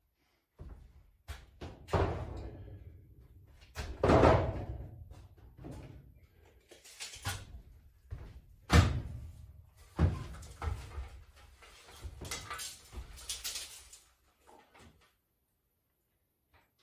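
A series of irregular knocks and thuds from fitting a large wood-framed mirror onto a timber wall, with timber being handled against it. The heaviest knocks come about two, four, nine and ten seconds in, each with a short ringing tail, and the work goes quiet about two seconds before the end.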